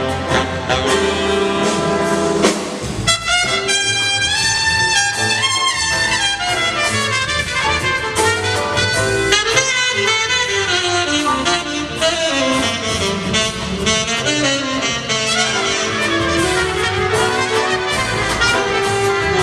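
Live big band jazz, with the trumpet, trombone and saxophone sections playing over a drum kit. The low end drops out briefly about three seconds in before the horns come back in with moving lines.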